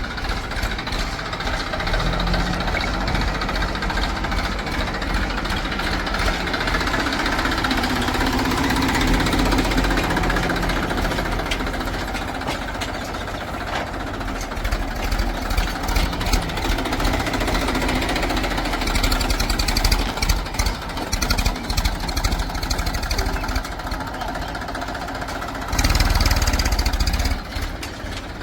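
Diesel engines of a backhoe loader and farm tractors running, the engine note rising and easing under load. Scattered clattering knocks come through it, and there is a louder burst of engine noise near the end.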